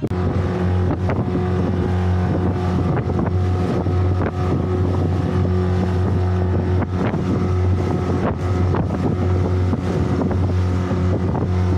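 A small open boat's outboard motor running at speed, a steady low drone, with wind buffeting the microphone and knocks from the hull pounding through the chop.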